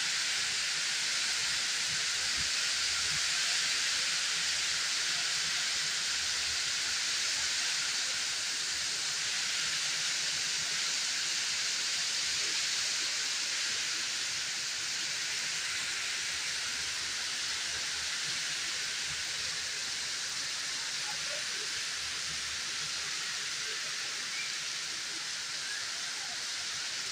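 Heavy rain pouring down steadily as a dense, even hiss that eases slightly toward the end.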